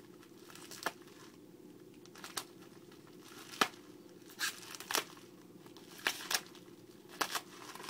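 Plastic toy packaging crinkling, with irregular sharp clicks and snaps as small figure parts are worked free of it.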